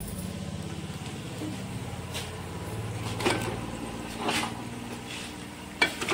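Raw chicken pieces being put into a pan of fried onions, with a few short clatters and knocks of metal, the sharpest near the end. Under it a steady low hum like an idling motor.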